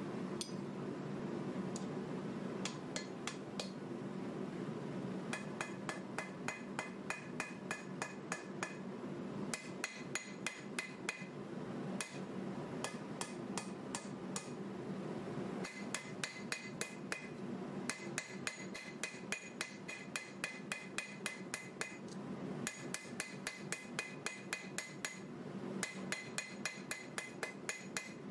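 Hand hammer forging a red-hot 1095 carbon steel knife blank on an anvil: runs of rapid blows, several a second, each ringing, broken by short pauses.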